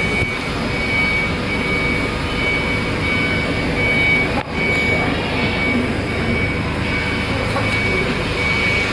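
CAT6 LAN cable making machinery running steadily and loudly on a test run, with a high-pitched tone pulsing on and off over the top of it.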